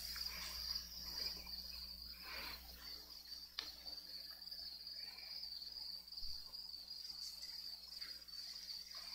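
Crickets chirring in a steady, high-pitched drone, with one faint click about three and a half seconds in.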